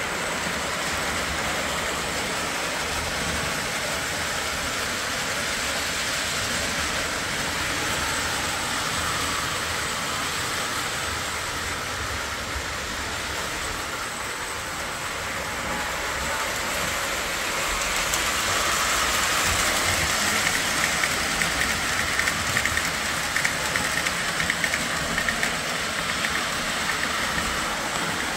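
Lionel O-27 toy steam locomotive and freight cars running on three-rail tinplate track: a steady rumble of wheels and motor. It grows louder about two-thirds of the way through as the train passes close, with a run of sharp clicks near the end.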